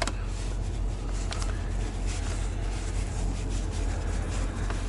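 A hand screwdriver with a T20 Torx bit turns out a blower-motor mounting screw: faint scraping with a couple of light clicks. A steady low rumble runs underneath.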